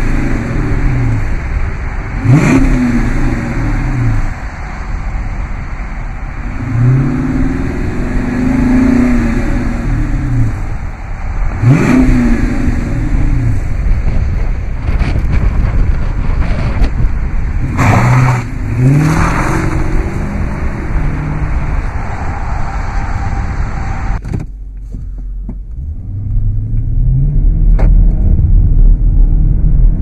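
Dodge Charger Daytona's 5.7-litre HEMI V8 revved repeatedly at a standstill through its dual exhaust: about five sharp blips, one held a little longer. About 24 seconds in, the sound turns dull and low, the engine now heard from inside the cabin with its rumble rising.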